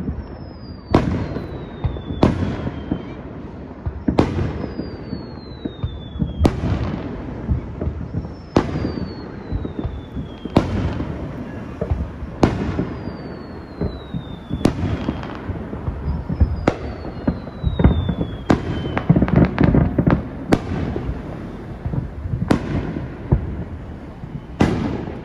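Aerial firework shells bursting, about one sharp bang every two seconds, each followed by a rumbling echo. Several bursts carry a thin whistle that falls in pitch over about two seconds.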